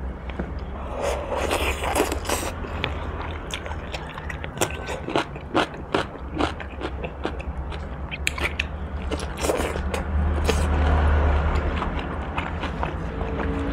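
Close-miked chewing and lip smacking of boiled pork bone meat, with many short, irregular clicks and smacks over a steady low hum.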